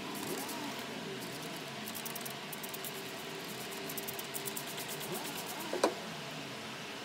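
Trigger spray bottle squirting liquid onto a rusty hand vise in quick bursts, over a steady background hiss. There is one sharp click near the end.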